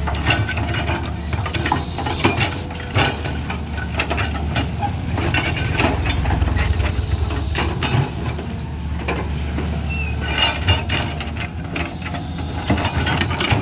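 Crawler excavator's diesel engine running steadily under hydraulic load. Scattered clanks and rattles come from the working bucket and arm.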